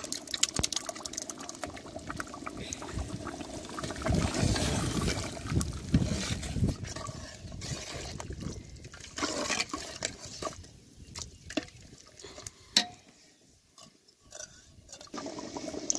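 Thick curry gravy sloshing in a large aluminium pot as curd is poured in and stirred with a long metal ladle, with a few sharp clicks of the ladle against the pot.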